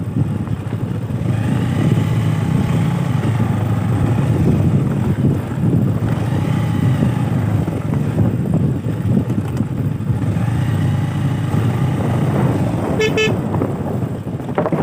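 Motorcycle engine running on a ride over a rough dirt road, its note rising and falling a few times with the throttle, with wind rumbling on the microphone. A brief horn toot near the end.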